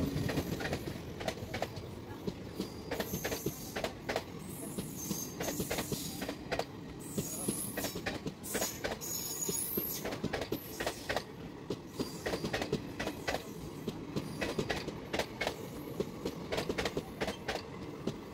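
Passenger train coaches rolling past on the track: steady rumble with many wheel clicks and clacks over rail joints. Brief high-pitched wheel squeals come mostly in the middle.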